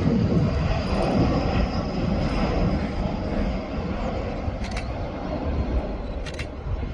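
Airbus A320 jet engines: a steady rush of jet noise with a faint high whine, easing slightly after the first few seconds. Two short sharp clicks come in the second half.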